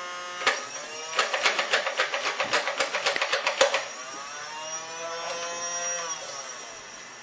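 Small battery motor of a Spy Gear toy disc launcher whirring. A fast clatter of clicks runs for about two and a half seconds and ends in a sharp snap, after which the motor runs on with its pitch wavering and slowly fades.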